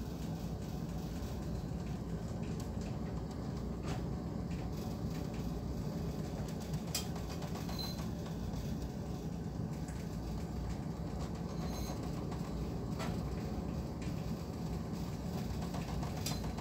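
Steady low rumble and wash of a handysize bulk carrier underway in a rolling sea, with a few sharp clicks scattered through it.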